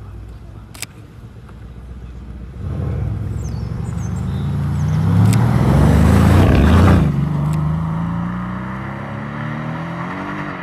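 Mercedes-AMG C-Class coupe pulling away and accelerating past, its engine note rising to its loudest about six to seven seconds in. After a gear change the pitch climbs again as the car draws away and fades.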